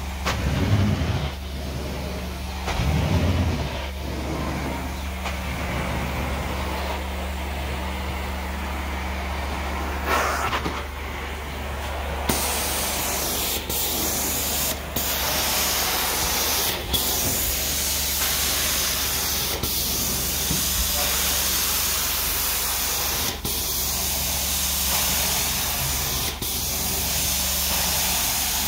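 Carpet steam-cleaning extractor and wand: a steady machine drone with the hiss of hot water spraying and being sucked up through the wand. About twelve seconds in the hiss grows louder and stays on, dipping briefly every few seconds.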